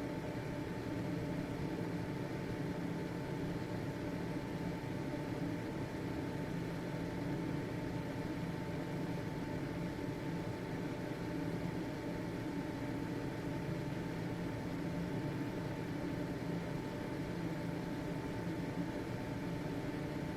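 Household ventilation fan running steadily: an even motor hum and airflow with a steady whine in the upper mid-range.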